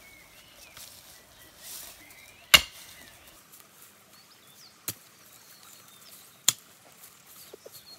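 Pickaxe chopping into the ground to dig out a bush's roots: three sharp strikes, the first and loudest about two and a half seconds in, the others roughly two seconds apart. Faint birdsong in the background.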